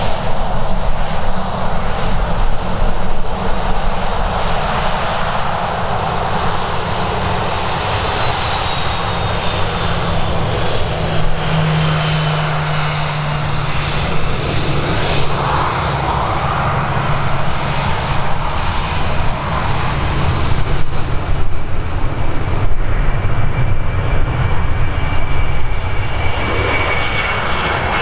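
Boeing 737's turbofan engines running at taxi power, a steady jet rumble with a thin whine that slowly falls in pitch. Near the end it gives way to the sound of another Boeing 737 climbing away after takeoff.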